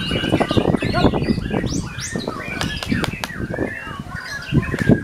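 White-rumped shama in a cage giving short whistled notes and quick rising slurs, with wing flutters and sharp clicks as it hops about on its perch, over a dense, busy background noise.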